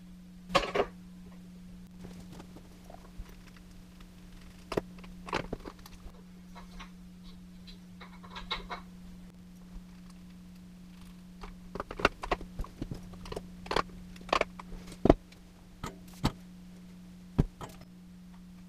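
Scattered clicks, taps and metallic clinks of a nut driver and small hardware being handled on an electric guitar's output jack and control cavity. They come in irregular clusters, one sharp rattle about half a second in and most of them in the second half, over a steady low hum.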